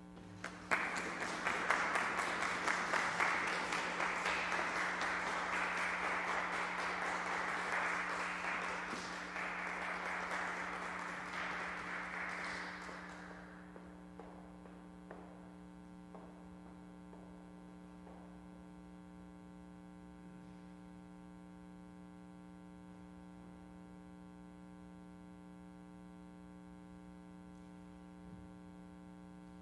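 Audience applauding in a welcome, starting about a second in, then dying away after about thirteen seconds. A steady low hum remains afterwards.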